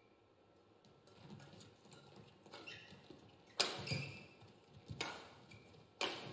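Badminton rally: sharp cracks of rackets striking the shuttlecock, three loud ones a little over a second apart in the second half, with court shoes squeaking on the mat.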